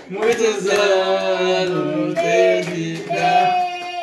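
A small group of family voices, women, men and a child, singing the Brazilian birthday song together, ending on one held note.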